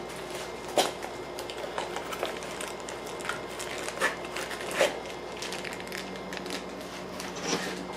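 Packaging being handled by hand: plastic wrap crinkling and a small cardboard box rustling, with a few sharper clicks and taps scattered through, over a steady low hum.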